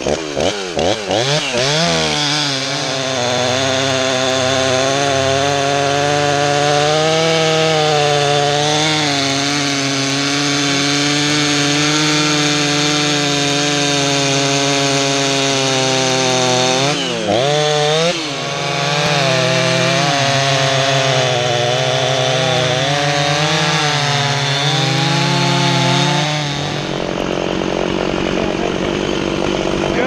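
Two-stroke chainsaw revved a few times, then held at full throttle cutting through a dead ash log, its note dipping and rising as the bar works through the wood, with a brief drop and rev-up about halfway through. A few seconds before the end the cutting note stops and the sound falls back.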